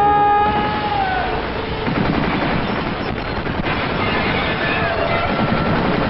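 Kalashnikov-style assault rifle firing on full automatic in a long, continuous burst of rapid shots. A long, high-pitched yell opens the burst and breaks off about a second in.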